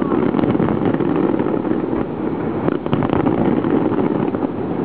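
Fireworks display: a continuous rumble of many overlapping shell bursts with scattered sharp pops and crackles.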